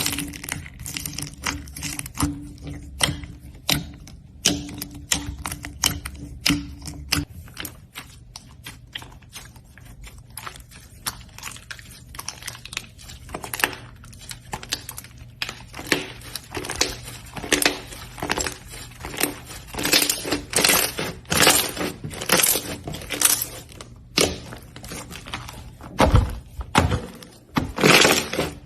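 Slime being squeezed and pressed by hand: a long run of crackling, popping clicks, typical of crunchy slime. The clicks come thicker and louder in the second half.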